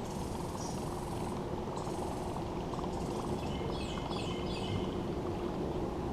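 A songbird singing a quick run of high chirps about three to five seconds in, over a steady low rumble of moving air and water with a faint steady hum.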